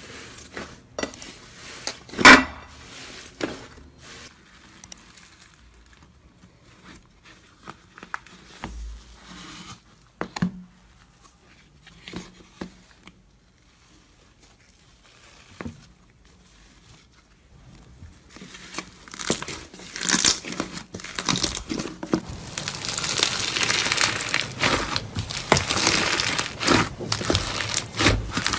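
Slime being handled and squished by hand: scattered sticky clicks and pops at first, then a dense, continuous crackling from about two-thirds of the way through.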